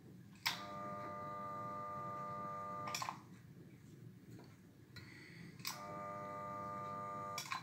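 Resistance soldering unit's transformer humming steadily twice, for about two and a half seconds and then for just under two seconds, while current flows through the carbon rod into the brass. Each hum starts and stops with a sharp click from the unit's switching relay as the foot switch is pressed and released.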